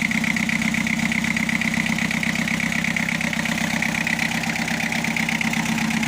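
Freshly overhauled Mitsubishi Canter 4DR7 four-cylinder engine idling steadily with an even, rapid beat of firing pulses. It runs a little hard and knocky, which the owner puts down to timing set too far advanced.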